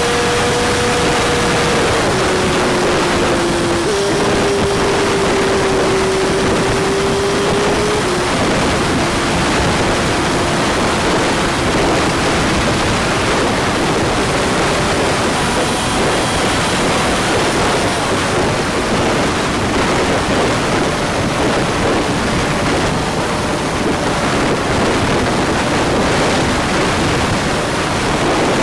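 Honda CG125's single-cylinder engine running under a heavy rush of wind and road noise on the move. The engine note drops in pitch in steps about two and four seconds in, then is buried under the wind.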